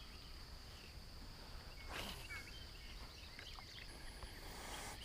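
Faint outdoor riverside ambience: a steady thin high tone under a low background hiss, with scattered faint bird chirps and a soft swish about two seconds in.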